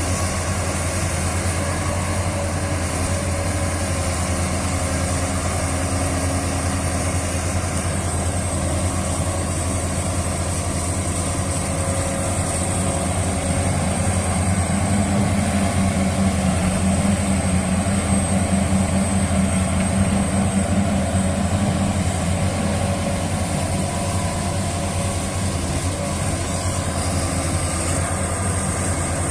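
Heavy diesel engines of a large hydraulic excavator and an articulated dump truck running steadily, with a faint high whine above the low hum. For several seconds in the middle the engine note grows louder as the machine works harder.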